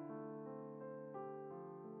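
Background keyboard music: a slow line of held, overlapping notes, a new note every third to half a second.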